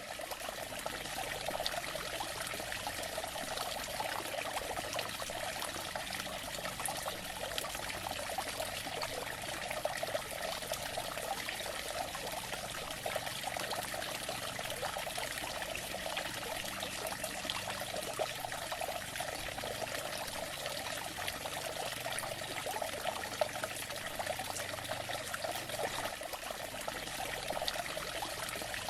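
Running water trickling and splashing steadily, a continuous bubbling flow over rocks with no let-up.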